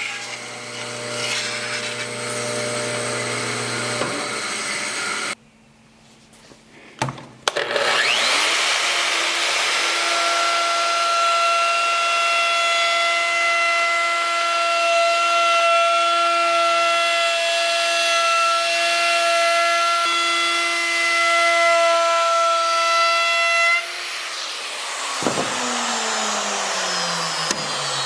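Electric power tool working wood, its motor running with a steady whine. It cuts out about five seconds in, starts again louder and higher in pitch, then near the end winds down with a falling pitch.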